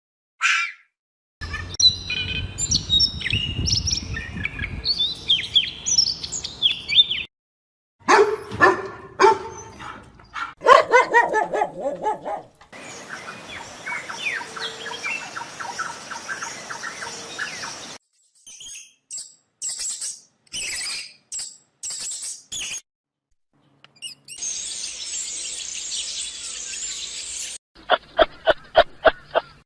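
A run of short animal-sound clips cut one after another, with birds chirping through much of it, other animal calls between, and fast even pulsing near the end.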